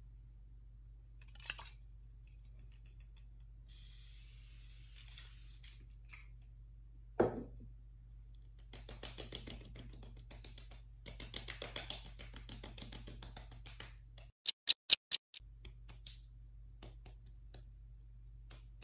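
Typing on a keyboard in bursts of rapid key clicks, with a single dull knock about seven seconds in and a quick run of five sharp, louder clicks near the end.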